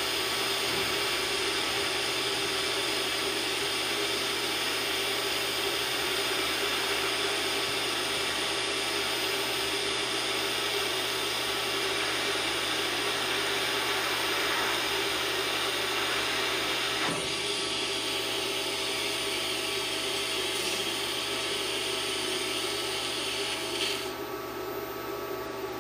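A DC TIG welding arc on steel plate hissing steadily under a faint machine hum. About 24 seconds in the arc is broken and the hiss drops away, leaving a quieter steady hum.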